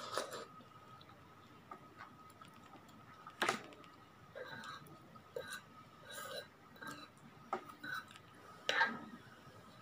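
A metal spoon clinks and scrapes against a ceramic mug while thick rice porridge is stirred. There are two sharper clinks, about three and a half seconds in and near the end, among lighter irregular ticks.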